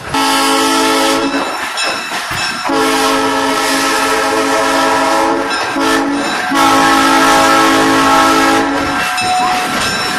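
Locomotive horn sounding the grade-crossing signal: two long blasts, a short one and a final long blast, as the train approaches a road crossing. Wheels clatter on the rails underneath.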